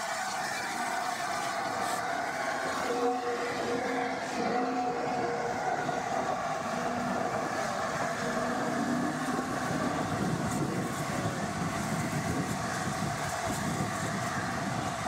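LNER A4 Pacific steam locomotive rolling slowly past at close range, with a steady hiss of steam from its cylinder drain cocks and wind buffeting the microphone.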